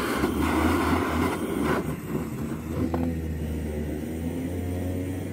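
Handheld gas blowtorch flame hissing steadily while it heats scissor blades to disinfect them. The noise drops off about two seconds in, leaving a lower hum.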